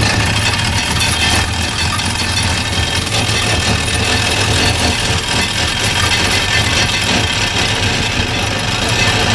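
Wooden excursion boat's inboard engine running steadily under way, a continuous low hum beneath an even, broad rushing noise.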